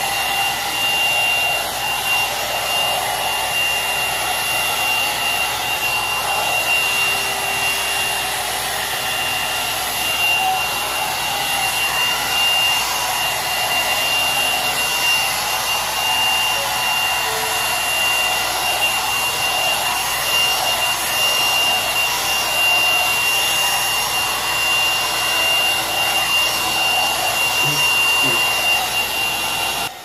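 Growom hot air brush running: its fan motor blows air with a steady rush and a constant high-pitched whine, level dropping right at the end.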